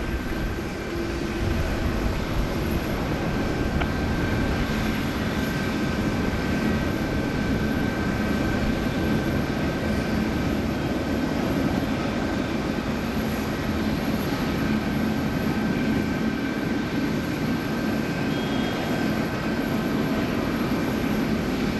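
Jet airliner engines running at an even level: a broad rush with a thin, steady whine that holds its pitch.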